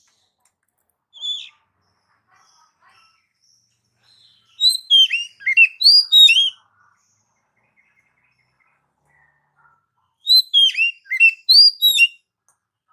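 Oriental magpie-robin (kacer) singing. A single short call about a second in is followed by two bursts of quick, falling whistled notes, each about two seconds long, with a pause of several seconds between them.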